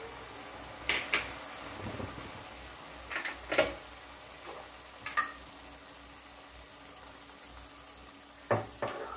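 Chicken pieces sizzling and simmering in their own released juices in a non-stick kadai, a steady sizzle. A few scattered knocks against the pan break in, the last pair near the end.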